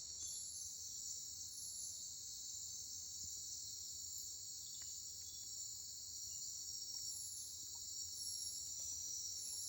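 Steady night-time chorus of crickets and other insects, a continuous shrill hum, with a higher, shorter chirp cutting in now and then.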